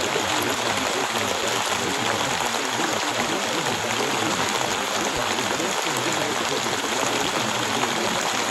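Steady recorded rain: an even, unbroken hiss of falling rain with no single drops or pauses standing out.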